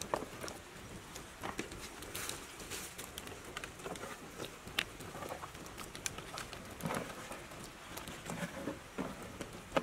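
Scattered light crackles and rustles, irregular short clicks throughout, from a small wood fire burning under a cooking pot and dry leaves shifting underfoot.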